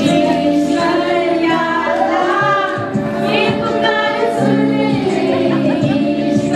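Several women's voices singing a song together.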